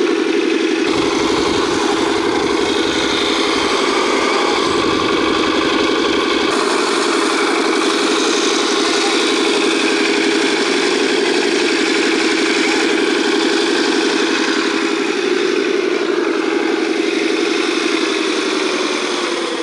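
Engine sound of a 1/14-scale RC hydraulic construction machine running steadily at idle, with a deeper rumble added from about one second in until about six and a half seconds in.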